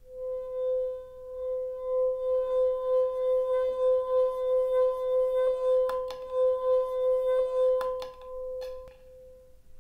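A wine glass partly filled with water singing as a wet finger circles its rim: one steady ringing tone just above 500 Hz with fainter overtones, swelling and dipping about three times a second with the finger's passes, then fading out near the end. A few faint clicks come in the second half.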